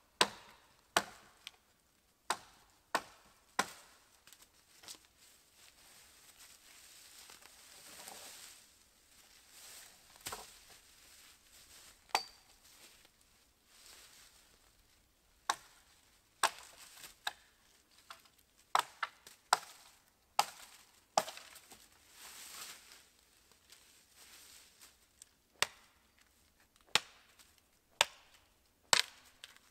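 Small 600 g Urnieta forest axe chopping dead branch wood: about twenty sharp, single blows, irregularly spaced, some in quick runs of two or three, with pauses between runs.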